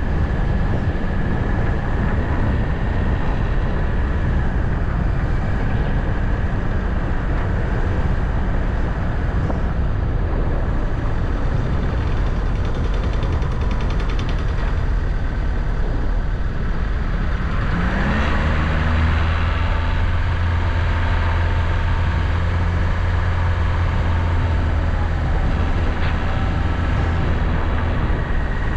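Vehicle driving along a road: steady engine and road noise. About 18 seconds in, the engine note rises and then holds at a higher pitch.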